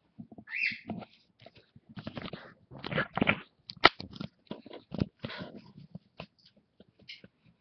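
Handling noise as the camera is moved and jostled: irregular rustling of cloth, scrapes and knocks, with one sharp click about four seconds in.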